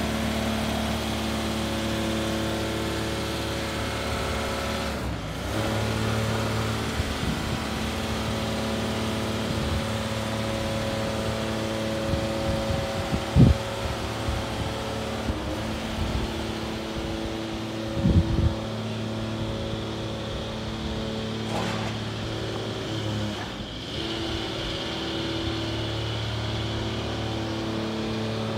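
Volvo truck's diesel engine running steadily, its tone shifting in level a few times, with two loud sharp knocks about five seconds apart midway through.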